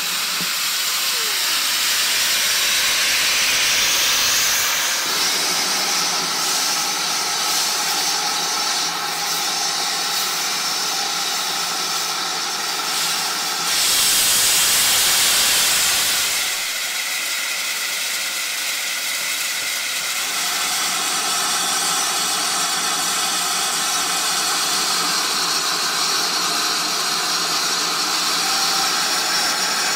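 Steam hissing steadily from a GWR 0-6-2T tank locomotive, louder for a couple of seconds about halfway through.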